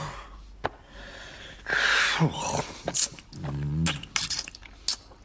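A cartoon character's non-verbal vocal noises: a breathy, sneeze-like exclamation about two seconds in and a short grunt later, with a few sharp clicks in between.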